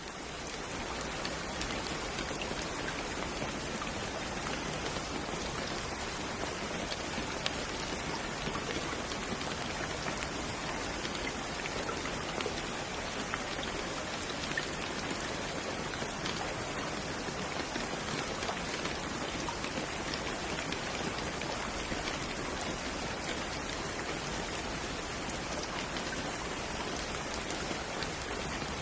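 Steady rain falling on a surface, an even hiss of drops with scattered individual drop ticks, fading in at the very start.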